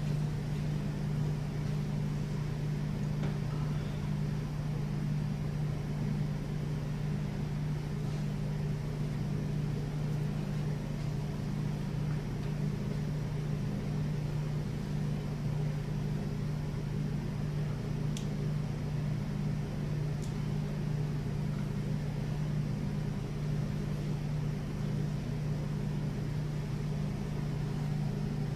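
Room tone in a silent hall: a steady low hum with a few faint ticks.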